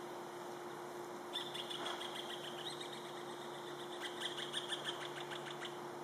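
Hispaniolan woodpecker calling: two runs of rapid, repeated harsh notes, the first starting about a second in and the second, louder one about four seconds in, at roughly seven notes a second.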